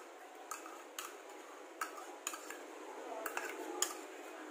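Metal spoon scraping and tapping against a small ceramic bowl as mayonnaise is spooned out into a container, with a few light, scattered clicks.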